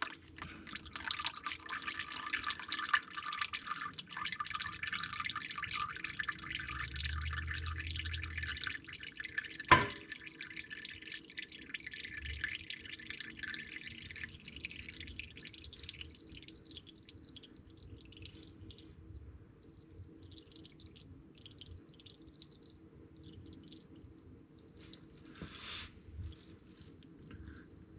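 Old engine oil trickling and dripping from the loosened oil filter of a 2014 Ford Focus as it drains: a steady patter for the first dozen seconds or so that thins to occasional drips. One sharp clink about ten seconds in.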